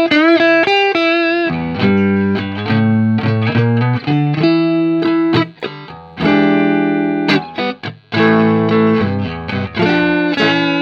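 Guitar playing: single notes bent and wavering in pitch for the first second and a half, then ringing chords and plucked notes.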